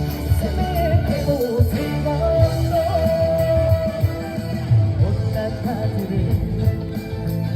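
Trot music on a loud stage sound system: a backing band track with a steady beat, and a lead voice that glides down and then holds one long high note about two seconds in.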